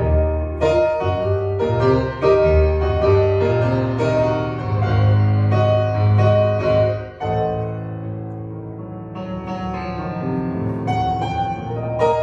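Solo piano playing slow chords over a sustained bass, with a brief softer passage about seven seconds in.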